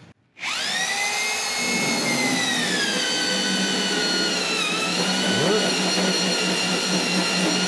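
Electric drill starting up about half a second in and running a Miyanaga Galva-Wood core bit into stainless steel plate: a steady high whine whose pitch sags a little under load around the middle. The operator feels the bit slipping slightly but starting to bite.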